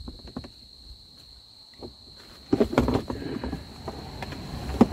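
Knocking and rattling of hard objects being handled and shifted, loudest about two and a half seconds in, with a single sharp knock near the end. A steady high insect trill runs underneath.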